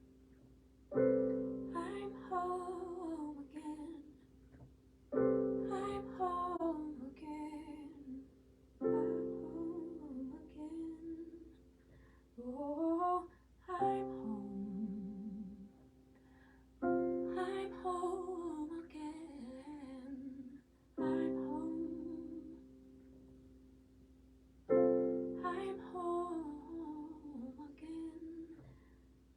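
Slow, sustained piano or keyboard chords struck about every four seconds, with a woman's voice singing a gliding, wordless melody over them: spontaneous worship music.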